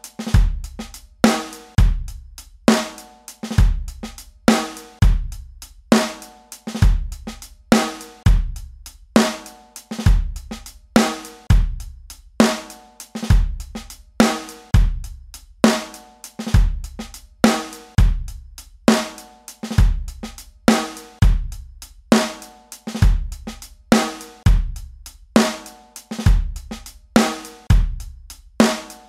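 Background music with a heavy drum-kit beat: a deep bass drum about once a second, with snare and cymbal hits between.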